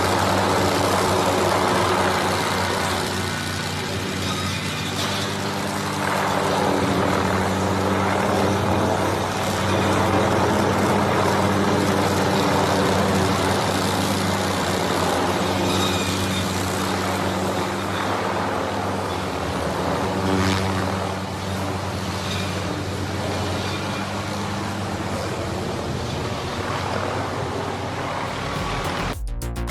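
Heavy tree-work machine's engine running steadily under load, with a constant low hum and a broad mechanical noise over it.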